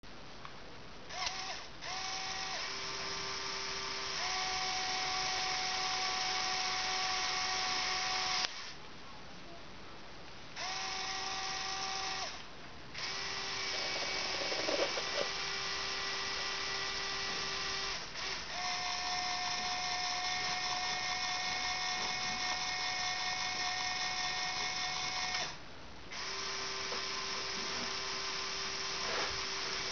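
LEGO Power Functions electric motors driving a LEGO 8455 backhoe loader model through its gears: a steady whir that starts and stops in several runs of a few seconds each, broken by short pauses, its pitch shifting slightly partway through.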